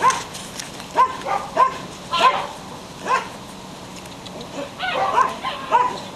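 Belgian Shepherd puppy yipping: short, high yelps at irregular intervals, with a quicker run of them about five seconds in.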